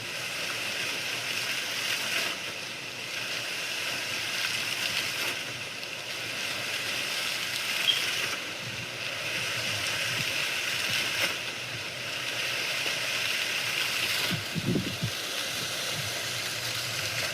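Water-fountain sound effect: a steady hiss of splashing water, like rain or a fountain, with faint seams about every three seconds.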